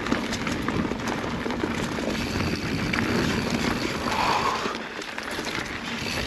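Mountain bike riding fast down a dirt and rock singletrack. Steady tyre and air rush, with frequent small rattles and clicks from the bike over rough ground.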